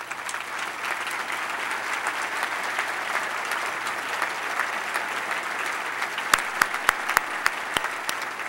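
Audience applauding: dense, steady clapping that builds up over the first second. A few louder single claps stand out near the end.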